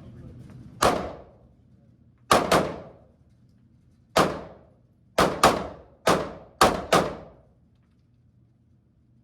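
Smith & Wesson M&P Shield pistol fired nine times in an uneven string: a single shot, a quick pair, a single, then a fast run of five. Each shot trails off briefly.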